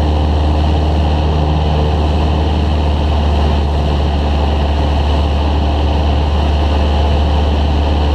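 Cessna 172's piston engine and propeller running with a steady, even drone, heard from inside the cabin in flight.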